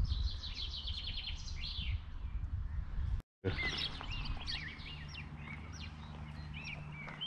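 Several songbirds singing, starting with a rapid run of repeated high notes and, after a brief dropout about three seconds in, going on with varied chirps and whistles. A low rumble runs underneath, and a steady low hum joins it in the second half.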